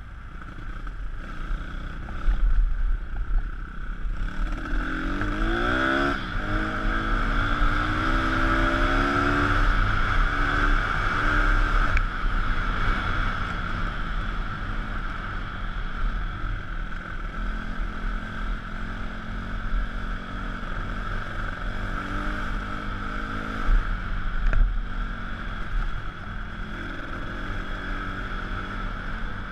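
Pit bike engine running under throttle on a dirt trail, its pitch climbing sharply about five seconds in as it revs up, then holding and rising again near the end. Wind rumbles on the microphone throughout.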